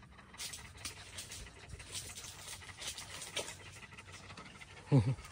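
A dog panting faintly and unevenly, with a brief voice sound near the end.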